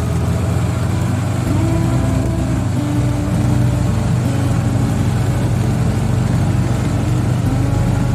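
Vehicle engine running steadily as it drives over ranch ground, its pitch shifting up and down a little with speed.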